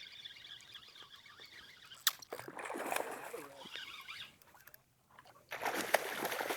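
Hooked fish splashing at the water's surface while it is being fought in, with a sharp click about two seconds in.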